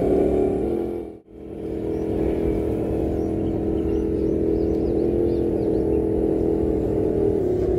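Electric motor and gearbox of an RC scale crawler truck whining steadily as it drives, with small shifts in pitch. The sound dips to near silence for a moment about a second in, then comes back.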